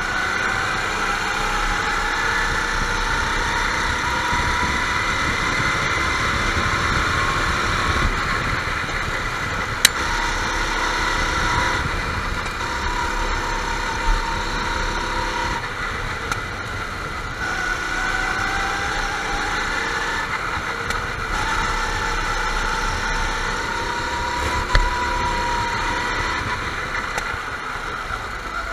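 Several go-kart engines racing, their pitch repeatedly climbing under throttle and dropping off as the karts brake for corners, with the engine notes overlapping. A few brief sharp knocks stand out above them.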